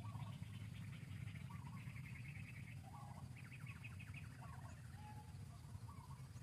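Small birds calling, with short chirps about once a second and repeated buzzy trills, over a steady low rumble.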